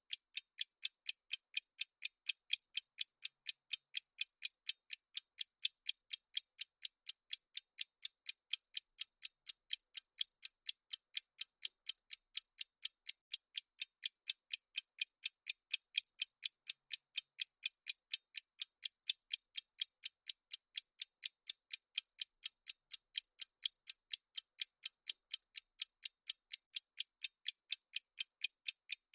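Clock-style ticking sound effect of a countdown timer: sharp, high-pitched ticks at an even pace of about three a second.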